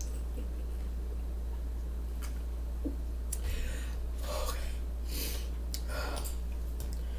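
Mouth and breath sounds while eating a sandwich: a few soft clicks, then four short, noisy breaths through the nose in the middle, over a steady low electrical hum.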